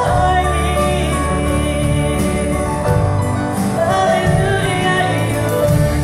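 Two women singing a contemporary Christian pop song live, accompanied by a band of electric and acoustic guitars and drums.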